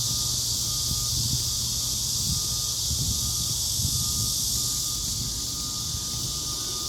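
Outdoor ambience: gusty wind buffeting the microphone over a steady high hiss, with a faint short chirp repeating every half second or so.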